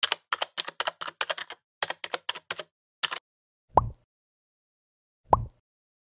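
Keyboard typing sound effect: a quick run of key clicks for about three seconds as the on-screen text is typed out, then two short, soft pops about a second and a half apart.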